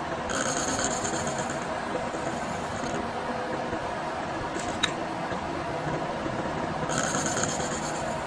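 Milling machine running, its disc gear cutter cutting teeth into a Teflon bevel gear blank: a steady machine hum with two stretches of higher-pitched cutting noise, one near the start and one near the end, and a single sharp click about halfway.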